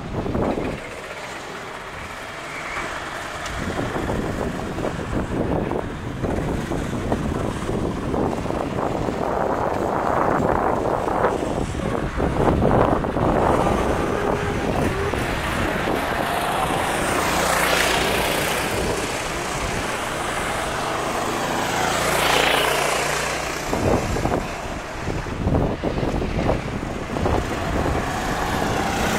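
Engines of several Sodi RT8 rental karts running around the circuit, single-cylinder four-stroke engines buzzing continuously, with several pass-bys swelling in pitch and loudness as karts come by and fade away.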